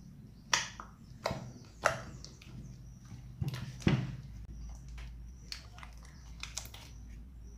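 Slime and soft clay being kneaded together by hand, making irregular sticky clicks and pops as the clay is worked into the slime to turn it into butter slime.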